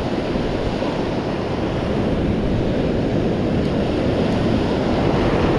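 Ocean surf breaking and foamy water washing over the sand in shallow water, a steady rushing that swells slightly toward the end, with some wind buffeting the microphone.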